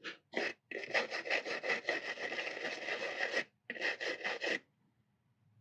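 A small hand tool scraping and rubbing quickly back and forth on the plastic body of a 3D-printed HO-scale hopper wagon, cleaning off leftover print supports. A couple of short scrapes are followed by a run of rapid strokes lasting about three seconds, a brief pause, and one more short run.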